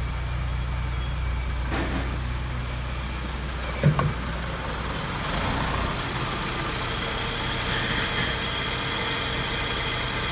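Fiat Ulysse's 2.0-litre XU10J2 petrol four-cylinder engine idling steadily, heard first at the exhaust and then, after about six seconds, from the open engine bay, where a steady high tone joins the running. A single sharp thump about four seconds in is the loudest moment.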